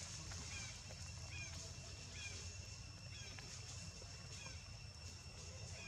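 Baby macaque giving short, high, rising-and-falling squeaks over and over, about one every second. Its repeated calls are aimed at its mother. A steady high hum runs underneath.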